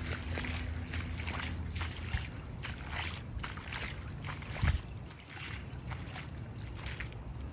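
Footsteps squelching through wet mud, gravel and shallow floodwater, about two or three steps a second, with a single low thump about four and a half seconds in.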